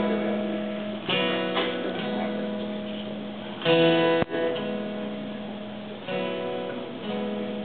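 Solo acoustic guitar playing a ringing chord intro: chords struck every second or two and left to ring, with one chord cut short by a sharp muted click about four seconds in.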